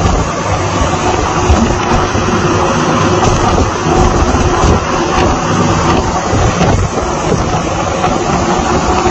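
Strong wind buffeting the microphone and rough seas churning, over the steady drone of a boat's engine.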